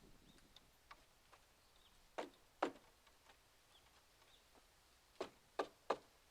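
A few sharp knocks, two a little over two seconds in and three in quick succession about five seconds in, over faint scattered ticks.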